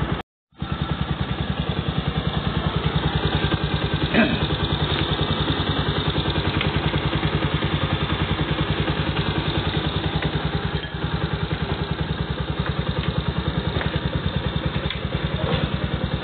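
Honda TMX Supremo's single-cylinder four-stroke engine idling steadily with an even beat after a broken clutch-side bearing was replaced, running quietly. The sound cuts out for about half a second just after the start, and there is one light knock about four seconds in.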